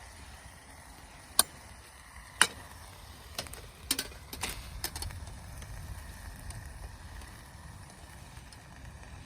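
Two loud, sharp clicks about a second apart, then a run of smaller clicks and knocks, over a low steady rumble.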